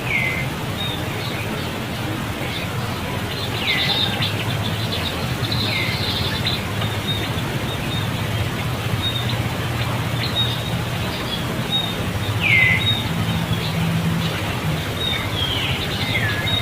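Bird calls: several short calls that each sweep quickly downward, spaced a few seconds apart, over a steady low outdoor hum.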